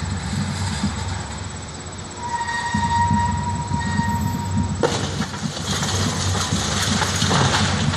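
A demolition crane's diesel engine runs with a steady low rumble and a thin whine. About five seconds in, the swinging wrecking ball hits the brick wall, and masonry and bricks crash and clatter down.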